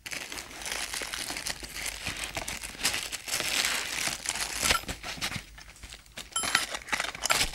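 Nylon bag crinkling and rustling as the kitchen timer is handled and taken out of it, with a brief lull about two-thirds of the way through.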